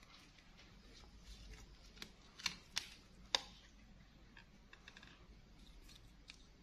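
Metal tweezers clicking and scraping against the plastic frame and mainboard parts of an opened Infinix phone, with a few sharp clicks about two to three and a half seconds in over faint room noise.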